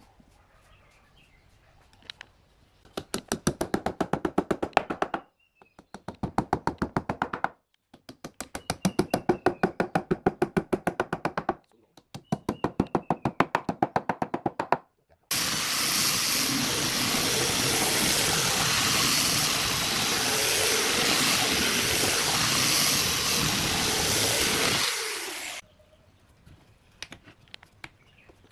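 A wooden mallet strikes a pine stool seat in four bursts of rapid, evenly spaced blows, driving thin wood slivers into the seat. A power tool then runs steadily for about ten seconds and stops abruptly.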